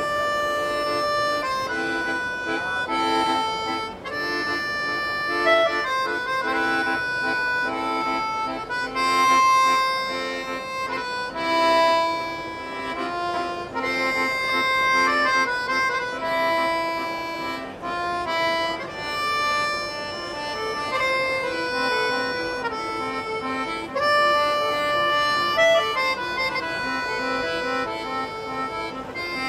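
Two small 3D-printed piano accordions playing a tune together: a melody on the right-hand keys over short, repeated chords in the lower register.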